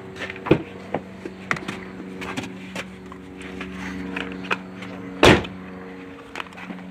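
Car door handle pulled and the latch clicking open, then small handling clicks, and the door shut with a loud thump about five seconds in, over a steady low hum.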